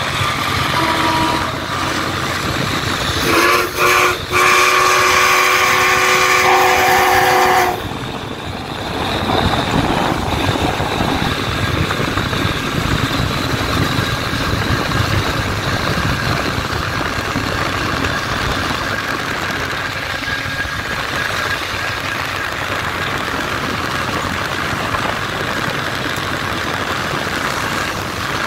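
Locomotive whistle on a passing train: a short toot about a second in, then a long, loud multi-tone blast of about four and a half seconds, broken twice near its start. After that comes the steady running rumble of the train, mixed with road noise, heard from a car driving alongside.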